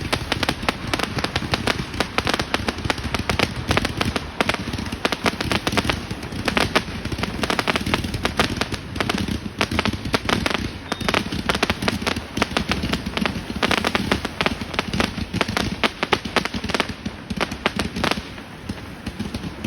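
Fireworks going off in a dense, continuous barrage of sharp cracks and bangs.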